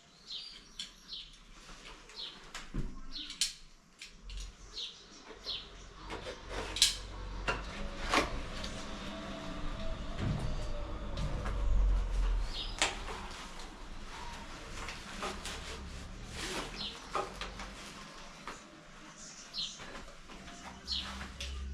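Intermittent knocks, clicks and clunks of shower parts and fittings being handled and fitted, with a bird chirping a few times near the start and again near the end.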